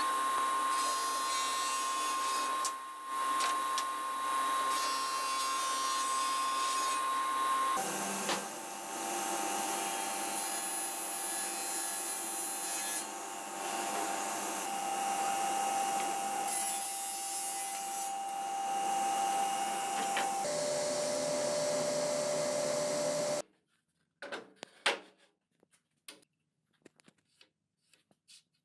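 A woodworking power tool running steadily with a motor whine that steps down in pitch about 8 seconds in and again about 20 seconds in, then cuts off suddenly. A few light knocks and clicks follow.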